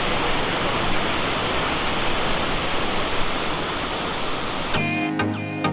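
Dudhsagar waterfall: the steady rush of heavy falling water. Near the end it cuts off abruptly and music begins.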